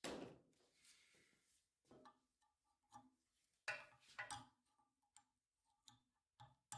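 Near silence broken by faint, short metallic ticks: a few light taps, most of them about four seconds in, on a tool driving the worn bushing out of a 1964 Chevrolet Impala door hinge.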